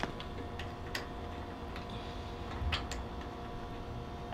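A garden hose fitting being screwed onto the brass water inlet of a pressure washer pump, giving a few light clicks and taps, two close together about three seconds in.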